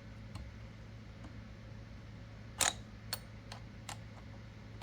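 A few sharp clicks over a faint steady hum as the swage rod is worked up through the block of a Frankford Arsenal X-10 reloading press to deck height; the loudest click comes about halfway through, followed by three lighter ones.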